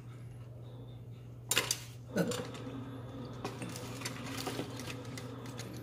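Food containers and eating utensils clattering on a table as they are handled, with two louder knocks about one and a half and two seconds in, then a run of lighter clicks and taps. A low steady hum runs underneath.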